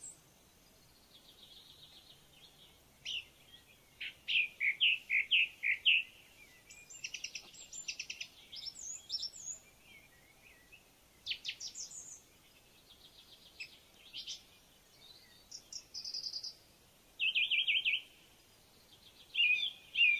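Songbirds singing: a string of short chirping and trilled phrases with brief pauses between them, over a faint steady outdoor background.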